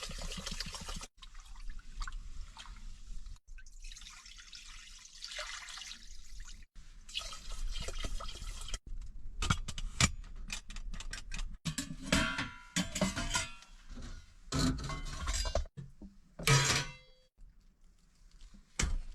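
Water pouring and sloshing in a cooking pot, followed by a run of clinks and knocks from pots and utensils being handled.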